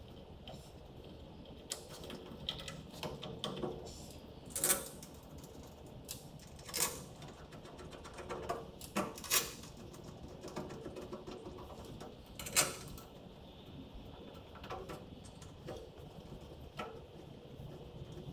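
Scattered clicks and clanks of metal parts and hand tools being handled, with several sharper knocks and long gaps between them.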